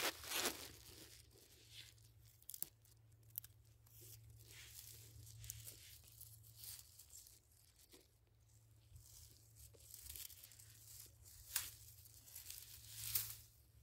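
Faint, intermittent rustling and crackling in dry grass and sandy soil, with a few louder scrapes near the end, over a low steady hum.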